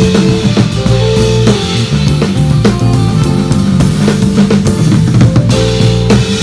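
Live band playing a funk groove: a drum kit with kick and snare hits over a steady bass line.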